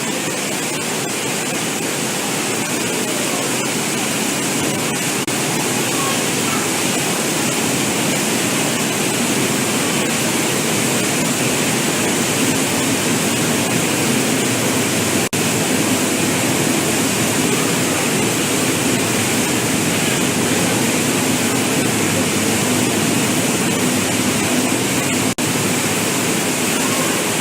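Loud, steady rush of torrential water from a simulated flash flood, building slightly in strength partway through.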